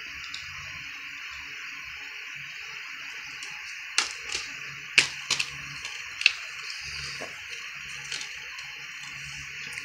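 A plastic Blu-ray case being handled and snapped open. A cluster of sharp plastic clicks and snaps comes about four to six and a half seconds in, with a lighter click near the end, over a steady hiss.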